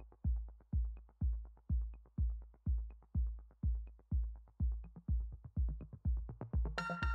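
Electronic intro music: a steady kick drum about twice a second with light ticks between beats, and a brighter, fuller layer of sound coming in near the end.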